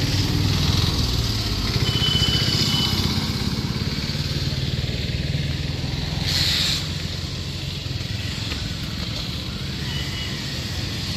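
Road traffic: vehicle engines running with a steady low rumble, a car passing about six seconds in, and a brief high tone about two seconds in.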